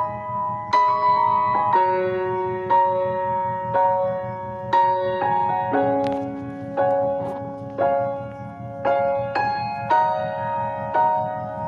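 Background piano music: slow notes struck about once a second, each ringing on and fading.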